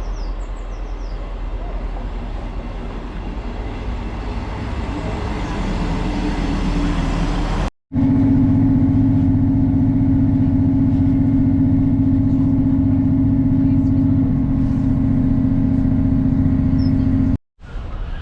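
Vehicle running, heard in two separate clips: first a rumbling noise with a low hum, then, after a sudden cut, a louder steady engine drone held at one pitch.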